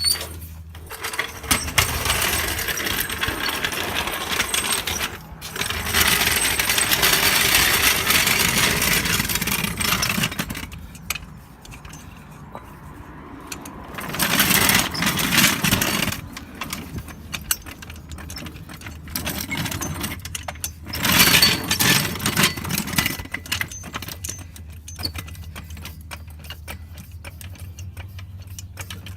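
Metal clinking, clattering and scraping in several long stretches, over a low steady hum.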